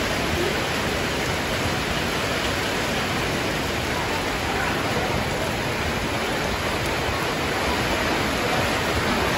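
Heavy rain pouring steadily onto a flooded street, with floodwater rushing across it: an even, unbroken hiss.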